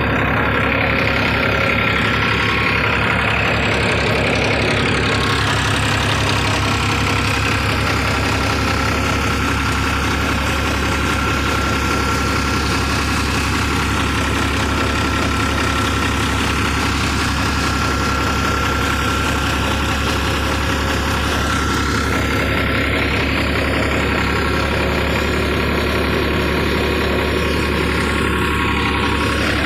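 Farmtrac tractor's diesel engine running at a steady speed, with no change in pitch or level, together with a steady mechanical rush.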